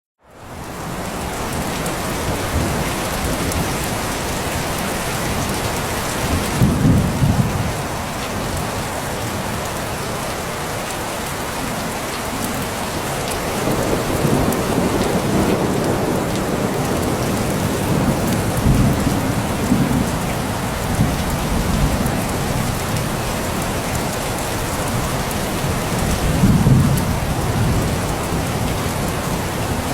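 Steady heavy rain pattering on surfaces, fading in at the start. Low rolls of thunder rumble through it a few times: about seven seconds in, again through the middle, and once more near the end.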